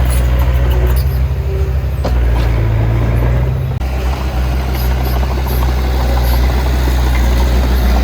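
Heavy diesel engine of earth-moving machinery running steadily, its low note shifting about two seconds in and again near four seconds.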